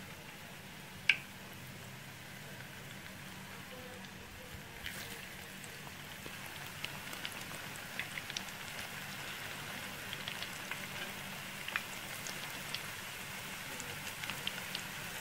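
Batter-coated cauliflower florets deep-frying in hot oil: a steady sizzle with scattered crackles and pops that grow busier after about five seconds. One sharp click about a second in.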